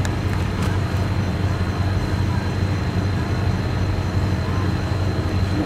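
Steady low engine drone, even and unbroken, with a faint thin high whine held above it.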